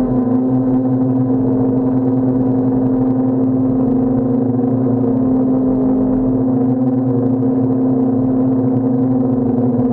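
DJI Phantom quadcopter's propellers and motors giving a steady, loud hum, its pitch wavering slightly a few seconds in.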